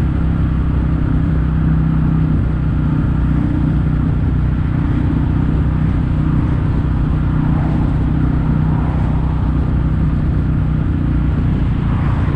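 Kawasaki W800's air-cooled parallel-twin engine running at a steady pitch through Yamato stainless-steel Cabton-style silencers.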